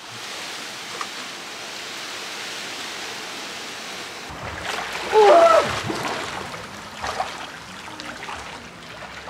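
Pool water sloshing and splashing as a person wades in and swims, over a steady rush of running water. About five seconds in comes a brief, pitched vocal exclamation, the loudest sound.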